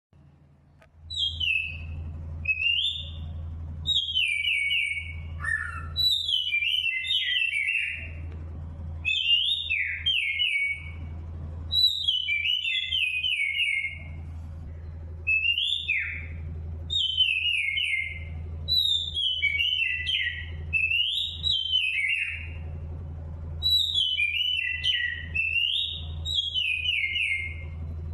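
A songbird singing in repeated phrases of quick whistled notes, many sliding downward, over a steady low hum. The song starts about a second in.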